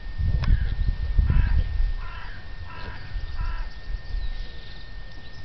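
A crow cawing four times in a quick series of short, harsh calls, with a low rumble during the first couple of seconds.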